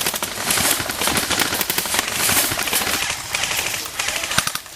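Airsoft guns firing rapid full-auto bursts of BBs, several going at once as a dense, fast clatter of shots with louder bursts now and then.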